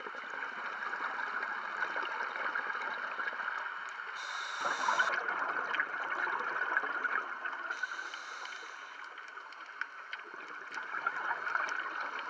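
Underwater recording of scuba divers' exhaled bubbles gurgling and rushing continuously, with two short hisses of the regulator about four and eight seconds in.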